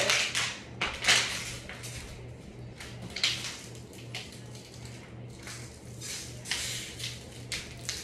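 Plastic bottle crinkling and crackling in irregular bursts as it is handled, loudest in the first second and again near the end, over the steady hum of a running ceiling fan.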